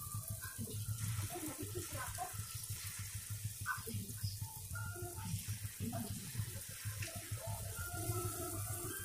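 Gulgule, sweet jaggery and wheat-flour fritters, sizzling and crackling steadily as they deep-fry in hot oil in a steel kadai, over a low steady hum.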